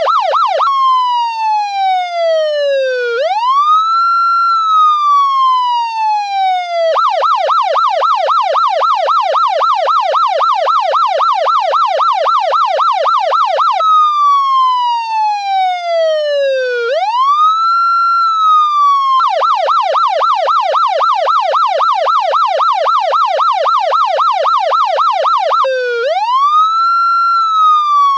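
Police car siren alternating between a slow wail that falls and rises again every few seconds and a rapid warbling yelp, switching roughly every six seconds.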